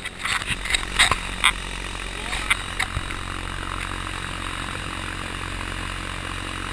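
Electric paraglider auxiliary motor and propeller running steadily with a steady hum, along with a haze of wind and propeller noise. There are a few sharp knocks in the first three seconds.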